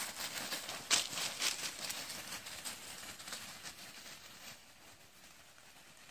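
Dogs' paws rustling and crackling through dry fallen leaves as they run, a quick scatter of crunching steps that thins out and fades as the dogs move off.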